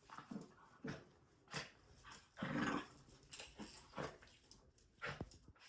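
Small dog play-fighting with a cat: a string of about six short, sharp sneezes and snorts, one longer and growly a little past two seconds in. Dogs often sneeze like this as a play signal.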